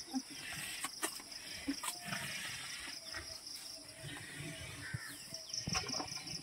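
Cattle feed rustling and knocking in a trough as bran is stirred into it by hand and the cows eat, with a few sharp clicks. Insects chirr steadily in the background.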